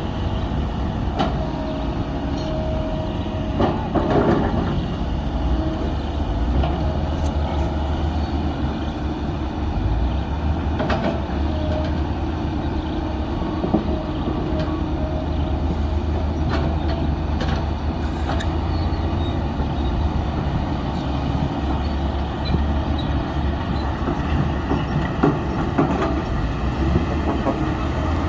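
Komatsu D53P bulldozer's diesel engine running steadily under load, a deep rumble, with scattered metallic clanks from its steel tracks and blade as it pushes dirt.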